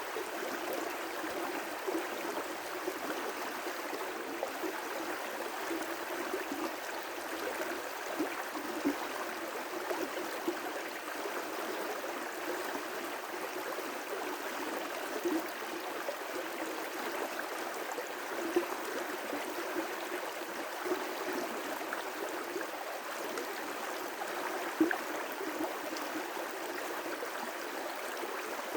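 River rapids: water rushing and splashing over rocks in a steady, continuous flow, with small irregular splashes.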